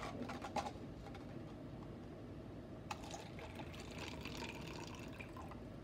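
Water poured from a glass measuring cup into a plastic cup holding jelly beans: a faint trickle starting about halfway through. There are a few light knocks of the cups being handled before it.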